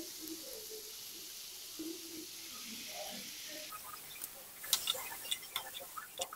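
Bottle gourd pieces sizzling softly in a kadai. From about four seconds in, a spatula stirs the gourd and added tomato, with a run of short clicks and scrapes against the pan.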